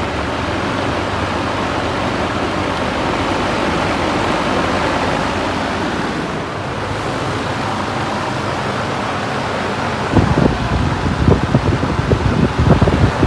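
Tornado 24-inch high-velocity metal drum fan running, a steady loud rush of moving air. From about ten seconds in, the airflow buffets the microphone in irregular low gusts.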